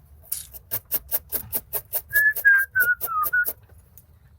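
A person whistling a few short notes of a tune, starting about two seconds in, over a quick, even run of sharp strokes, about five a second, that stops shortly before the end.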